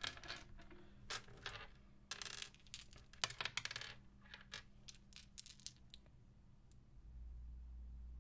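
Wiz Dice plastic polyhedral dice clicking and clattering on a wooden desk as they are picked up, set down and sorted by hand, a string of light clicks with the loudest about three seconds in.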